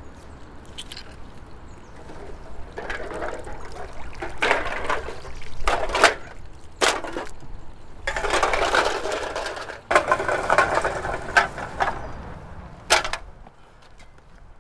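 Water streaming and splashing off a mesh keep net full of beer cans as it is hauled out of a river, with a few sharp knocks of the cans against each other.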